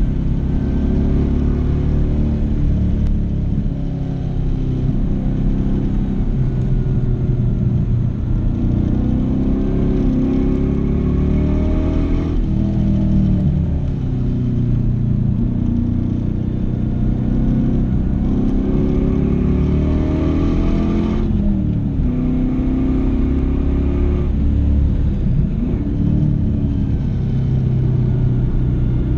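LS1 V8 engine in a BMW 318ti run hard on a track lap, its note climbing under throttle and dropping sharply a few times, as at gear changes or lifts off the throttle.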